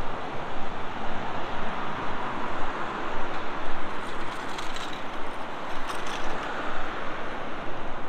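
City road traffic: cars and vans passing through a busy intersection, a steady rushing noise that swells and fades as vehicles go by.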